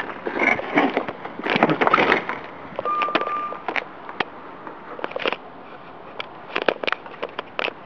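Handling noise from a handheld camera: fabric rustling with scattered clicks and knocks, and a short steady beep about three seconds in.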